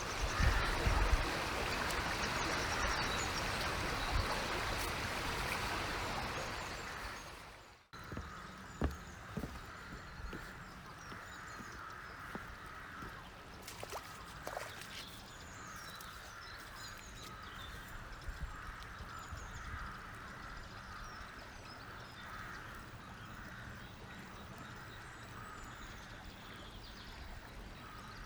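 Flowing river water, a louder rushing noise for about the first eight seconds, then after a sudden break a softer steady flow with small birds chirping and calling over it.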